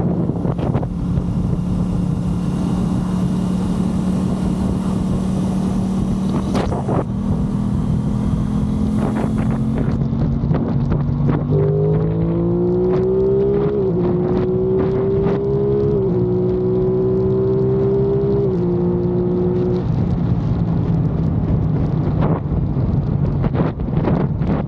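Aprilia Tuono 660's parallel-twin engine running at a steady pitch under way. About halfway through it accelerates, climbing in pitch and dropping back at each of several upshifts, then settles back to a steady cruise, with wind noise on the microphone throughout.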